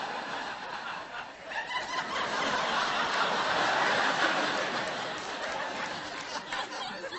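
Studio audience laughing, swelling up about two seconds in and easing off toward the end.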